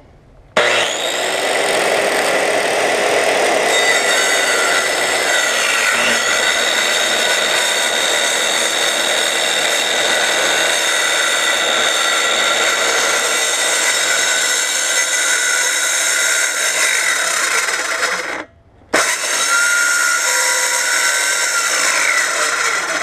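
Old Black & Decker circular saw running and cutting through a wooden board, its blade long overdue for replacement. It starts about half a second in, drops out for about half a second near the end, then runs again.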